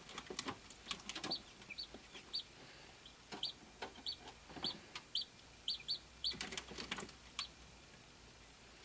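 A hatching chick peeping over and over, short high cheeps about once or twice a second that stop near the end, with scratchy clicks and rustles at the start and again about six seconds in.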